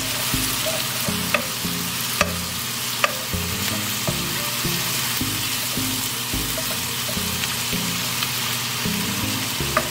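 Onion, asparagus and garlic sizzling steadily in hot olive oil in a nonstick skillet while a wooden spoon stirs them, with a few sharp clicks of the spoon against the pan.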